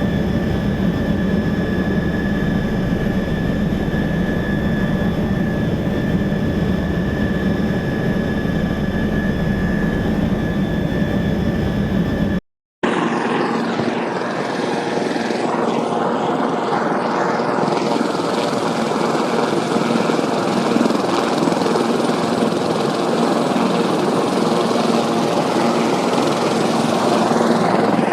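Helicopter running steadily, a turbine whine over the rotor sound. About 12 seconds in it cuts out for a moment and a different helicopter recording follows, with less low rumble and more mid-range noise.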